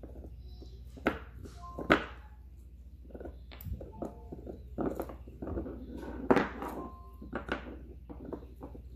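A puppy gnawing a hard nylon Nylabone chew stick: irregular clicks and scrapes of teeth on the stick, with two sharp knocks about one and two seconds in and a busier run of chewing in the second half.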